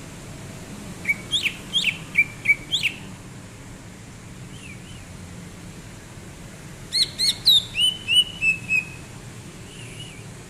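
Green leafbird (cucak ijo) singing in two bursts of quick, sharp chirping notes, the second ending in a short run of falling warbled notes, with a few faint notes in between, over a steady low hum.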